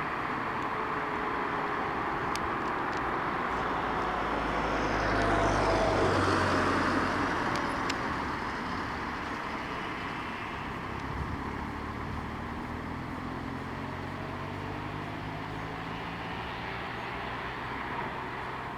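A vehicle passes close by over steady traffic noise, growing louder about five seconds in and dropping in pitch as it goes past, then fading back to a steady rumble.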